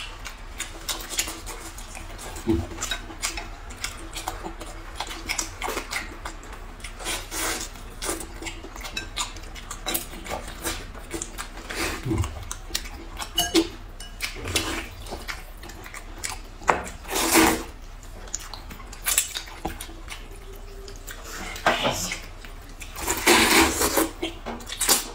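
Close-up eating sounds: chopsticks clicking and tapping against ceramic and glass bowls, with noodles slurped, the longest slurp near the end.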